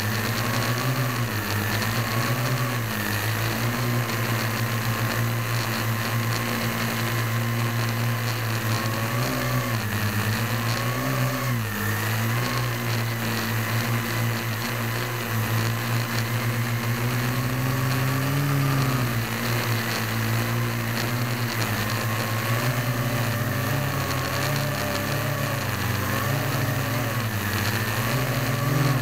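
Parrot AR.Drone 1.0 quadcopter's four electric motors and propellers whirring steadily in flight, heard from a camera mounted on the airframe. The pitch wavers up and down as the motors adjust thrust to hold and steer the drone.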